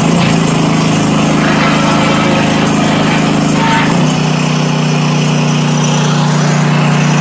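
Small gasoline engine of a Timberwolf log splitter running steadily, driving the hydraulic pump while the splitter's cylinder is cycled and timed. The engine note dips slightly about four seconds in.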